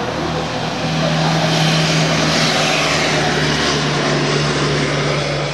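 Motor vehicle engine running with a steady low hum and broad road noise, growing louder about a second in and easing off near the end.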